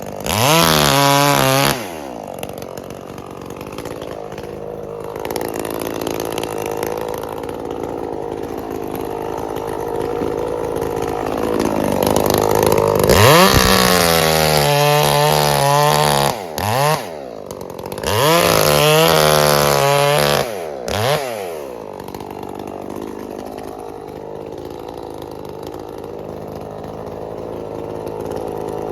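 Two-stroke chainsaw revving up to high speed and dropping back several times, running more slowly and steadily between the bursts and near the end.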